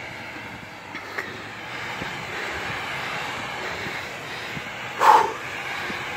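Mitsubishi L200 pickup's engine running steadily as it pulls away through deep snow, heard from some distance behind. A brief louder noise stands out about five seconds in.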